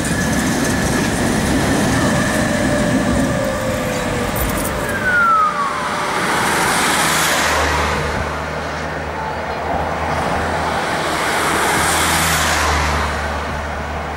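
Tatra T3 tram rumbling past close by on its rails, with a thin whine that falls in pitch about five seconds in as it goes. Then two swells of passing road traffic over a steady low engine hum.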